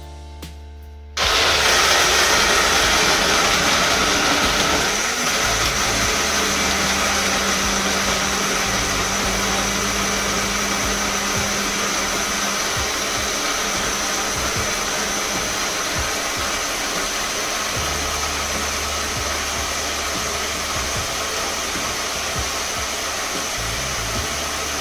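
Electric countertop blender switched on about a second in and running steadily, blending a thick mix of raw peanuts, oats and Guinness.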